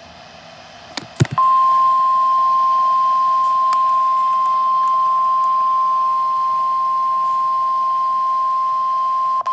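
Emergency alert warning tone, a single long steady beep that starts about a second and a half in. Two sharp clicks come just before it. This is the alarm tone that opens a broadcast severe thunderstorm warning.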